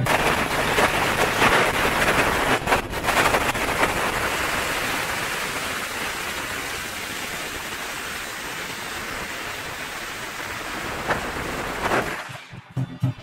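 A long string of firecrackers going off in a dense, continuous crackle that slowly eases and stops about twelve seconds in.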